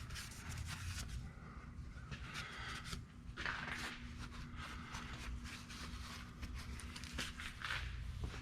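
Rag wiping spilled oil off around a newly fitted oil filter: irregular rustling and rubbing with a few light knocks of handling, over a faint steady hum.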